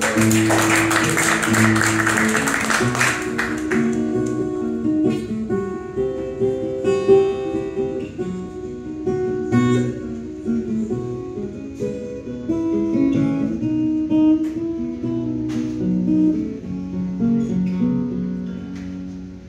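Solo acoustic guitar played live through a PA, an instrumental intro with no singing: a brisk, bright burst of strumming for the first three seconds or so, then a picked run of single notes and chords.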